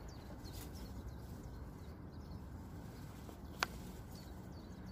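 Faint birdsong, small high chirps here and there, over a low steady outdoor background. One sharp click sounds about three and a half seconds in.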